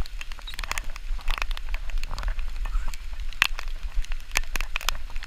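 Rain falling, with many scattered sharp taps of drops striking close to the microphone, over a low steady rumble.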